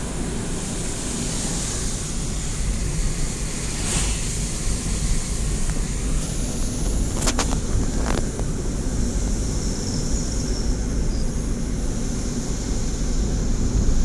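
Car interior noise while driving: a steady low rumble of tyres and engine, with a couple of brief clicks about halfway through.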